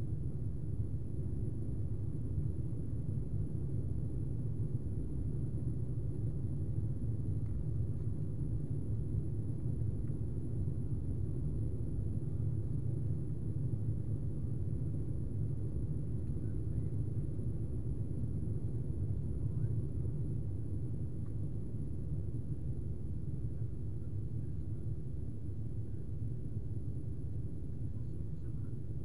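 Steady low rumble of an Embraer airliner's engines and airflow, heard inside the passenger cabin during the climb after takeoff.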